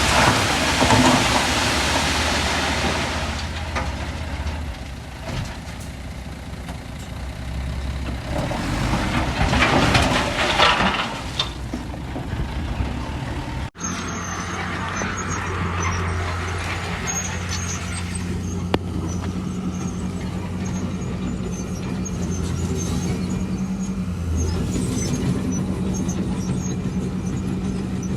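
Heavy diesel earthmoving machinery running, with two loud rushes of noise in the first half. About halfway in there is a sudden cut, after which a diesel engine runs steadily.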